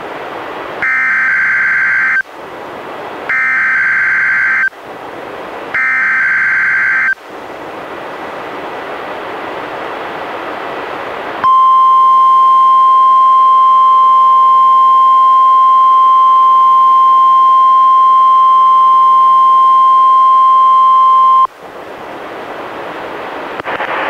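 NOAA Weather Radio test alert: three short, harsh buzzing bursts of SAME digital header data about two and a half seconds apart, then radio hiss, then the steady 1050 Hz warning alarm tone for about ten seconds, which cuts off suddenly back to hiss.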